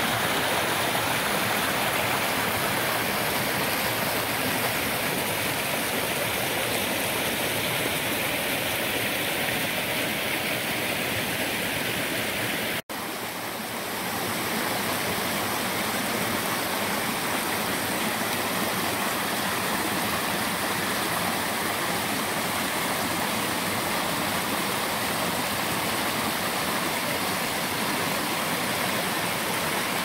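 Steady rush of a small woodland waterfall and stream cascades running high after heavy rain, water pouring over rocks. The sound drops out for an instant partway through and picks up again as another cascade.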